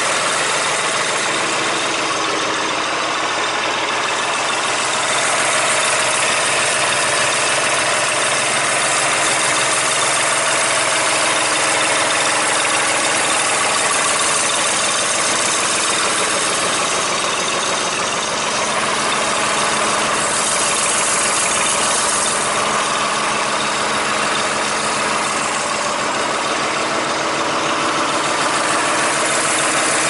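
John Deere 300B backhoe loader's engine idling steadily.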